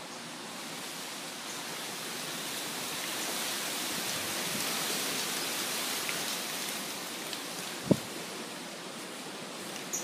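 Wind rustling through the leaves of a mango tree, swelling in the middle and easing off again. There is a short thump about eight seconds in.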